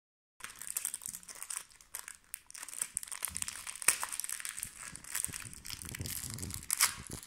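Foil wrapper of a Topps Sgorbions trading-card packet being torn open and crinkled by hand as the cards are pulled out: a dense, irregular crackling that starts about half a second in.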